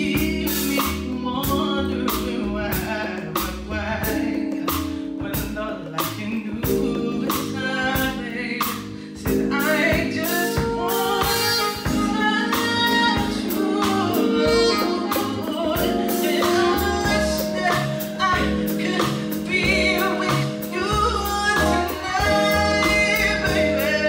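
A female singer sings a slow R&B ballad live into a microphone, backed by a band. Held electric keyboard chords and evenly spaced drum strokes play under her voice.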